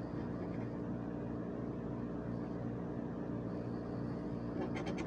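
A steady low hum throughout. Near the end comes a short burst of scratching as a blade scrapes the silver coating off a letter spot on a scratch-off lottery ticket.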